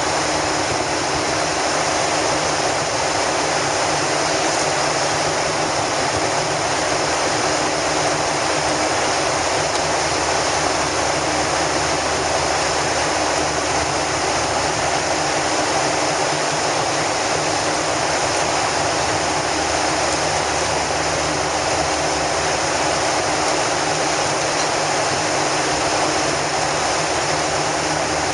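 Steady rush of cabin noise inside a jet airliner in flight, the jet engines and air streaming past the fuselage, with faint steady low tones beneath.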